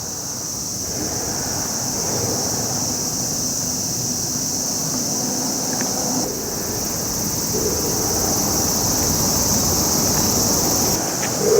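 A steady, high, continuous buzzing of insects over a low, even rushing noise, the outdoor ambience of a seaside.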